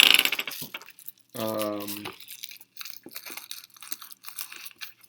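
A brief burst of crinkling and crunching from packaging being handled, then a short voiced 'um' about a second and a half in, followed by light scattered clicks and taps of small fingerboard parts.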